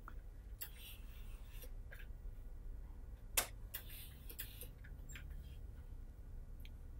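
Faint handling sounds of pressing a sleeve edge with a hand iron on a sleeve board: soft clicks and fabric rustles, with one sharper knock about three and a half seconds in.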